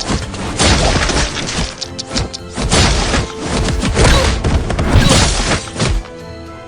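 Fight sound effects: a rapid string of smashes, crashes and heavy blows over dramatic background music. The blows stop about six seconds in, leaving the music.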